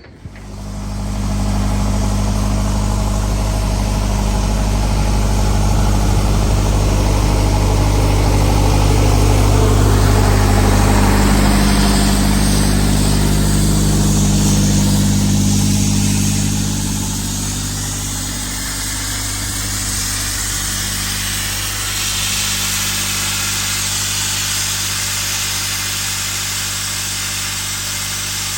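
Mobile abrasive blasting rig at work: a compressor engine runs steadily under a wide hiss, typical of air and media through a blast nozzle. It starts abruptly and eases slightly after the middle.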